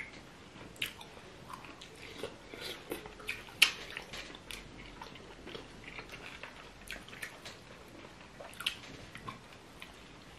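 Eating sounds of fufu with light soup eaten by hand: wet chewing and irregular, scattered mouth smacks and clicks, one sharper smack about three and a half seconds in.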